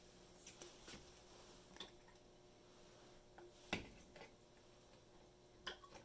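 Near silence with a few faint clicks and taps from a plastic graduated cylinder being handled under the outlet of a water-filled sand column; the loudest tap comes a little past halfway and another near the end, over a faint steady hum.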